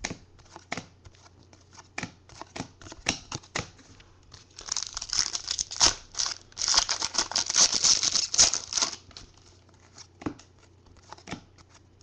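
Trading cards being handled and flicked through, with soft clicks. About four and a half seconds in, a foil trading-card pack is torn open and crinkled for roughly four seconds, the loudest part. Then there are more card clicks as the new cards are sorted.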